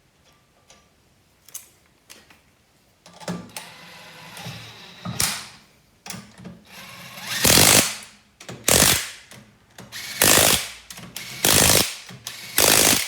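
Impact wrench running the wheel nuts onto a car wheel hub, then hammering them tight in five short, loud bursts about a second apart, starting about halfway through.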